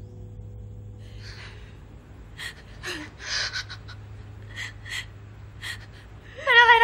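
A girl crying: shaky gasping breaths and sniffles, breaking into a loud, wavering sob near the end.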